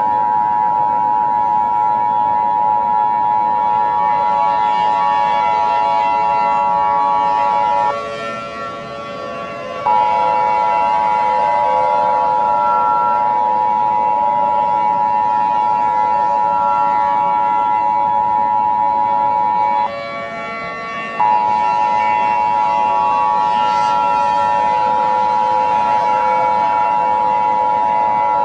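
Emergency Alert System attention signal: a loud, steady two-tone alarm held without a change in pitch. It drops out briefly twice, about a third of the way in and again about two-thirds through.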